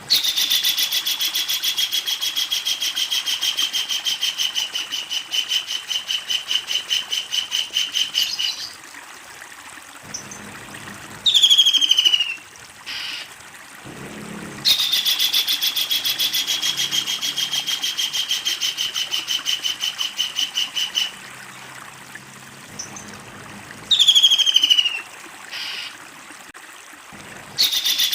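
Kingfisher giving its long chattering call: a rapid, loud series of high, harsh notes that slide down at the start and then run on steadily for several seconds. It calls twice at length, with short, quick falling bursts in between, and starts a third run near the end.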